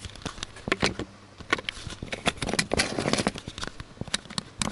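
Handling noise: a run of irregular clicks and knocks with brief rustles, as the camera is moved about and a folded paper cabin air filter is handled.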